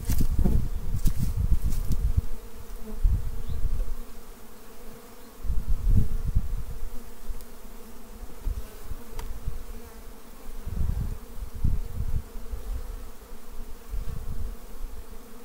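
Carniolan honeybees buzzing in a steady hum around an opened hive. Irregular low rumbles come and go underneath, strongest at the start and again about six and eleven seconds in.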